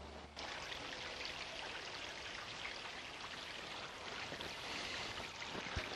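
Small rock waterfall spilling into a backyard garden pond: a steady trickle and splash of water, cutting in about half a second in.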